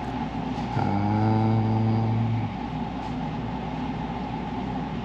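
A man's low, wordless held hum, like a drawn-out "mmm", lasting under two seconds about a second in, over a steady background hum and hiss.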